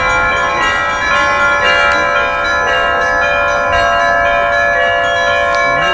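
Russian Orthodox trezvon rung on a portable belfry: several bells of different pitches struck again and again in a rhythm, their tones overlapping and ringing on.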